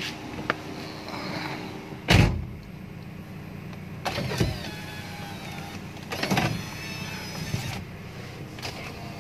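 Steady hum of a 2004 Toyota Avanza G idling with its air conditioning running, heard inside the cabin. A loud thump about two seconds in, then shorter whirring and rubbing noises around four and six seconds in.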